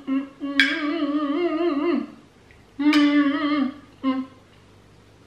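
A woman humming with her mouth closed in several separate hums of wavering pitch: a short one, a long one of about a second and a half, then another about three seconds in and a brief one near four seconds.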